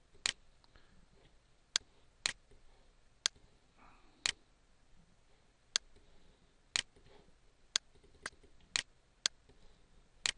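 Computer mouse button clicking about a dozen times at uneven intervals, often in pairs, as photos are dragged and dropped.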